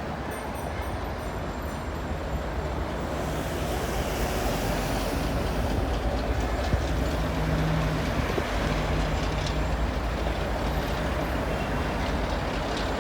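Chinese green-liveried conventional passenger train running on the track, a steady rumble of wheels and coaches that grows louder over the first few seconds and then holds.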